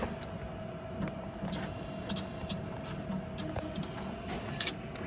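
Cash machine's note dispenser clicking and whirring as it counts out banknotes and pushes them into the slot, over a steady hum.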